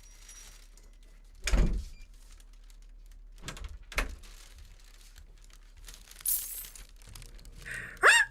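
Scattered handling noises: a knock about a second and a half in, two softer knocks a couple of seconds later and a brief crinkle. Right at the end a rooster crow starts, the opening of an alarm sound clip.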